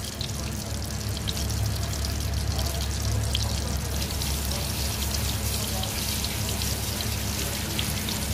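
Battered chicken pieces deep-frying in hot oil in a wok: a steady sizzle dotted with many small crackles and pops, the sound of the first fry on high heat.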